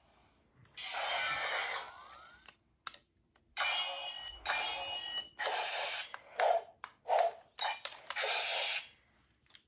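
Toy Green Ranger Dragon Dagger playing electronic sound effects from its small speaker: a string of short noisy bursts, some with a steady tone running through them and one with a rising sweep.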